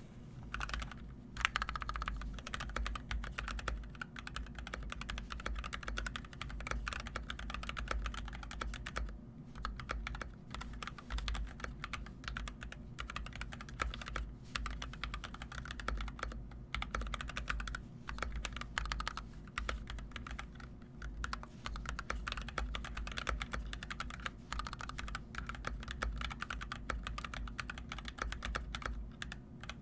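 Continuous fast typing on an NK65 Entry 65% mechanical keyboard with EV-01 switches and PBT keycaps: a dense, irregular clatter of keystrokes with a few brief pauses.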